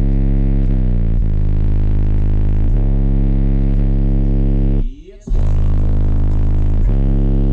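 Bass-heavy electronic music played loud through a car audio system's subwoofers: long held low bass notes that change every second or two, one sliding downward about a second in, with a brief break in the music about five seconds in.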